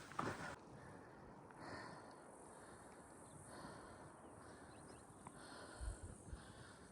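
Quiet outdoor ambience with a faint steady hiss. There is a single footstep just as it begins, and a couple of low muffled bumps near the end.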